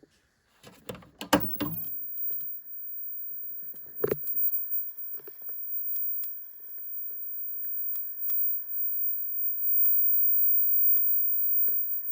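Commodore 1084S CRT monitor making odd noises: a steady hissing buzz with scattered sharp clicks or crackles every second or two. A few knocks come in the first couple of seconds and another about four seconds in.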